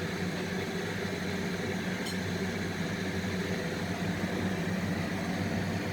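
Kitchen exhaust fan running with a steady hum, over the sizzle of bread frying in butter in a pan.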